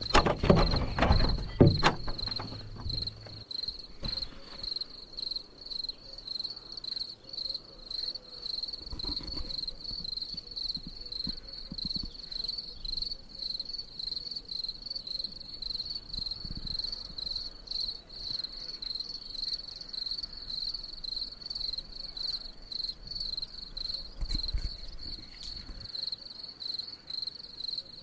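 Crickets chirping in a steady, rapidly pulsing high trill, with a few low knocks in the first two seconds.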